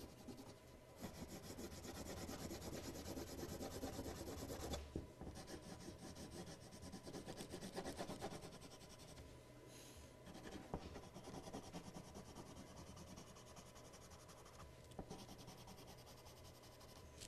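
Colored pencil shading back and forth on drawing paper: a faint, fast, scratchy rubbing with short breaks, growing fainter in the second half.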